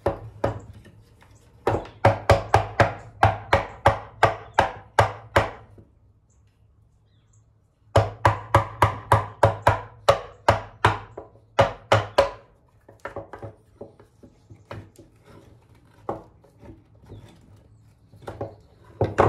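Wooden knocks from a wooden plough plane being tapped on a wooden workbench: two quick runs of sharp knocks, about three or four a second, then a few lighter scattered knocks and one loud knock near the end.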